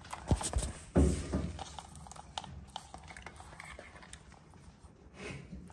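Hands handling small parts close to the microphone: a few soft knocks and clicks, the loudest about a second in, then scattered light ticks.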